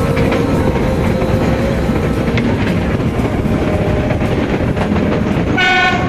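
Train running with a steady rattle and clatter of wheels on the rails, and a short horn toot near the end.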